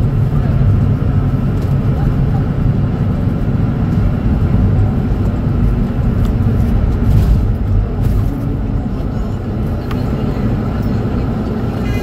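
Mercedes-Benz OM936LA Bluetec 6 inline-six diesel of a city bus idling with a steady low rumble.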